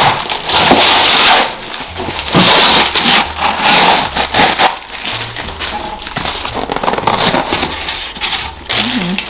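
Crinkling and rustling of packaging being handled and opened, in loud irregular bursts.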